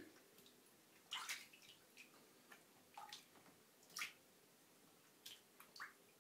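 Faint, light splashes of shallow bathtub water as two cats wade and paddle in it, a scattering of short splashes and drips about every half second to a second.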